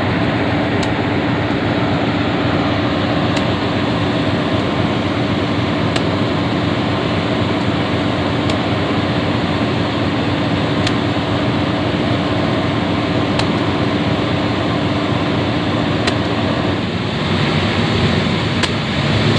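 Diesel-electric locomotive idling while standing, a steady engine and cooling-fan drone heard at close range. A steady hum within it stops about seventeen seconds in.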